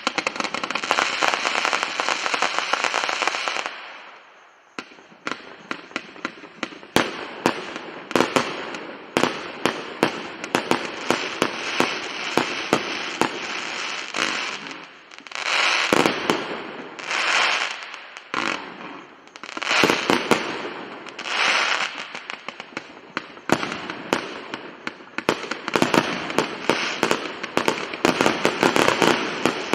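Fireworks going off: a dense stretch of crackling at first, then a long run of sharp bangs and cracks, with bursts of crackle every second or two.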